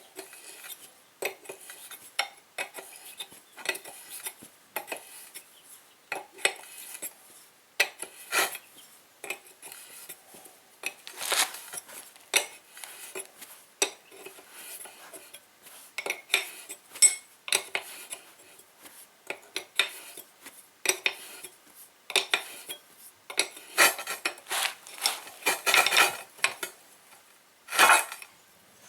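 Metal parts of a hydraulic jack clinking and clattering in short, irregular knocks as it is reassembled after its rubber seals were replaced.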